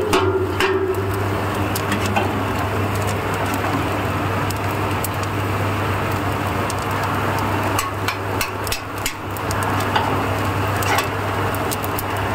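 Peanut roasting machine running with a steady low hum, peanuts rattling across its metal mesh sieve and pouring off into a basket with many scattered sharp clicks.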